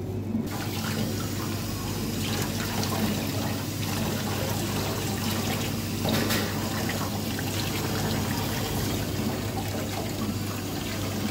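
Tap water running into a stainless steel sink partly filled with water, splashing as a gutted sea bream is rinsed under the stream by hand; the running water begins about half a second in. A steady low hum lies underneath.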